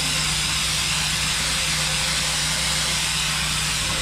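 Pressure washer spraying water: a steady hiss over the even hum of its engine running.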